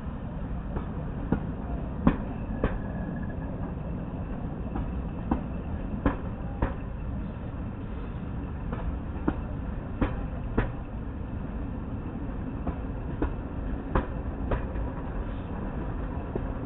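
Wheels of a slow-moving passenger train clicking over rail joints: pairs of sharp clicks every few seconds over a steady low rumble of the coaches running.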